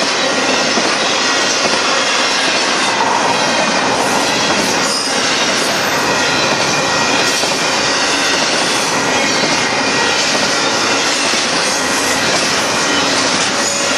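Double-stack intermodal freight cars rolling past at close range: a steady, loud rolling noise of steel wheels on rail.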